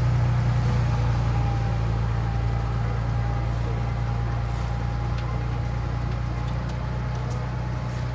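A work vehicle's engine running steadily at low speed, a deep even hum that eases slightly in loudness.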